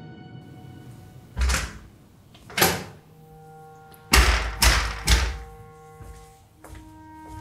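Heavy pounding on a flat's front door: two loud thuds about a second apart, then three quick ones, over background music with long held notes.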